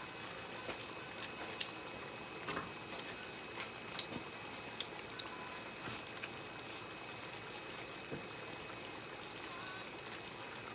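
Faint, scattered clicks and taps of chopsticks and bowls during a meal, over a steady background hiss.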